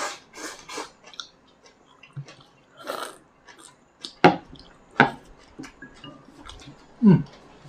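People eating with chopsticks from small bowls: soft slurping and chewing, with a few sharp clicks from the chopsticks and bowls, the loudest about halfway through and near the end.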